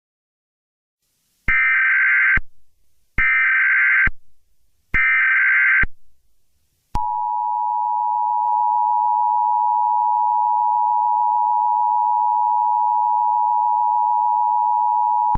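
Emergency Alert System header: three short bursts of warbling SAME data tones, each a bit under a second long. These are followed, about seven seconds in, by the steady two-tone EAS attention signal, held unchanged for about eight seconds. Together they signal that an emergency alert message is about to be read.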